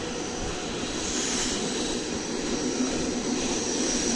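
Steady mechanical drone of poultry house machinery running, with a thin high whine above it.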